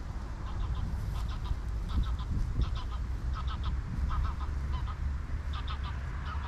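Waterbirds calling at a lake, short calls in quick groups of two to four notes repeated again and again, over a steady low rumble of distant road traffic.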